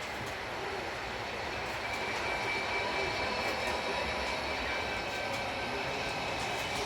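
HO scale model train running along the layout track: a steady rolling rumble of wheels on rail, with a faint high whine coming in about two seconds in.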